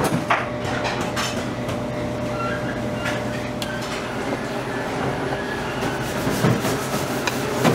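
Commercial kitchen noise: a steady hum and rumble with scattered knocks and clatter, among them a knife cutting through raw beef onto a plastic cutting board. The sharpest knock comes near the end.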